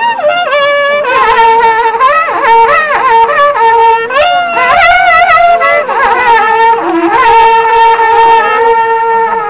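Two waqra pukus, Andean trumpets made of cattle-horn segments joined into a spiral, blown together: one holds a long, steady low note while the other slides and jumps between higher notes. The low note breaks off briefly about two thirds of the way through.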